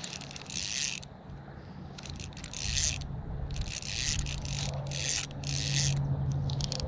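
Fishing reel being cranked in short bursts about once a second, a whirring, ratcheting gear noise as line is retrieved. A low steady hum runs underneath and grows louder about halfway through.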